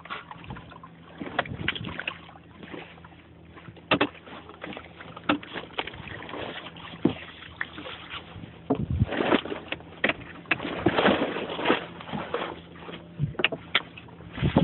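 Irregular knocks, taps and rustling of handling on a small fishing boat's wooden deck, over a faint steady low hum; the knocks come thickest about two-thirds of the way through.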